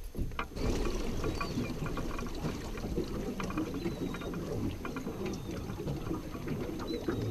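Water sloshing and lapping, a steady low wash dotted with small splashes.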